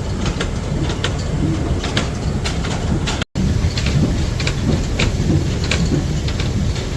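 Heavy truck rumbling, with irregular rattling and clatter over it. Near the middle, a brief dropout breaks the sound.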